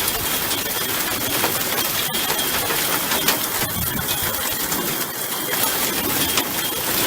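Hail falling: a dense, steady clatter of many small hailstones striking hard surfaces.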